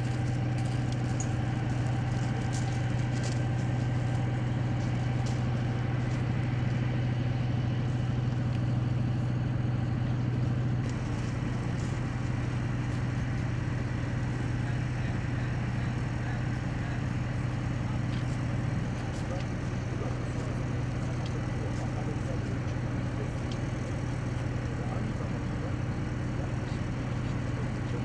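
A steady low engine hum, idling. There are faint scattered clicks in the first few seconds, and the hum changes slightly and drops a little in level about eleven seconds in.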